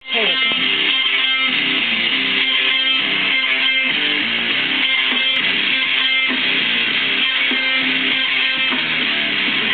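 Music led by a strummed guitar, starting abruptly at the very beginning and playing at a steady level.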